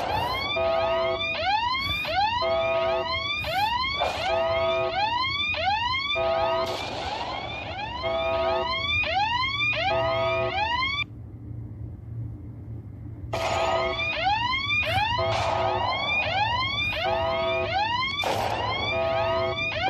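Mock emergency alert alarm: a siren of rising whoops repeating about once a second, layered with short steady beeps. It drops out for about two seconds midway, leaving a low hum, then starts again.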